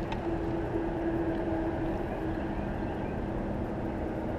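A boat motor running steadily: a low, even hum with a faint tone that fades about halfway through.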